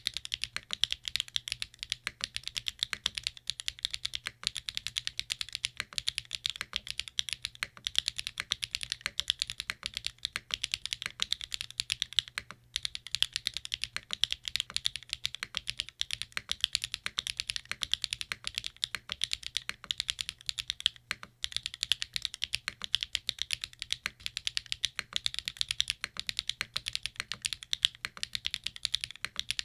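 Continuous typing on a NEO80 mechanical keyboard built with an FR4 plate, gasket-dumbbell mount, SWK Catmint switches and SW Foundation keycaps, with no foam inside. A steady, fast run of keystrokes, broken by brief pauses a little under halfway and about two-thirds of the way through.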